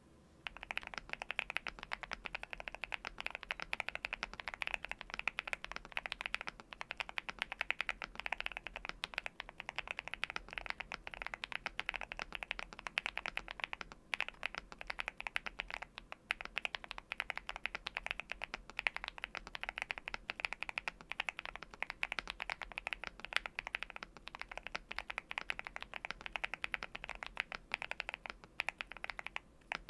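Continuous fast typing on a NuPhy Halo75 V2 mechanical keyboard with lubed Gateron Quinn switches, Cherry-profile keycaps and a tape mod: a dense stream of key clicks with brief pauses about halfway through and just before the end.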